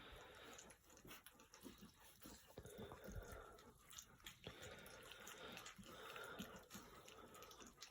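Faint, irregular wet lapping and smacking of three-week-old puppies eating a soft mash of goat's milk, water and puppy food from a dish.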